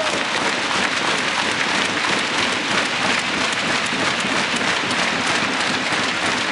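Large arena crowd clapping steadily, a dense, even patter of many hands.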